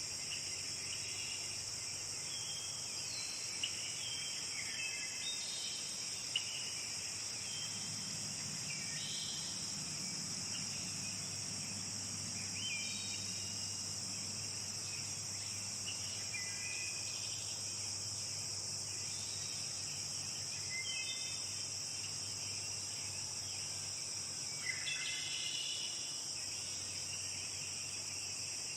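Steady high-pitched insect chorus, with short bird chirps scattered through it. A faint low hum comes in around the middle.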